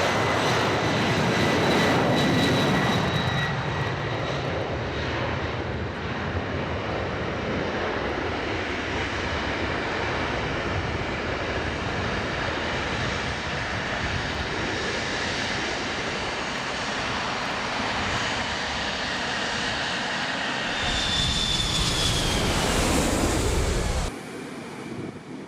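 Jet airliner's engines passing low overhead: a loud, steady rush of engine noise with high, even whining tones. Near the end it swells again with a whine that falls in pitch, then cuts off suddenly.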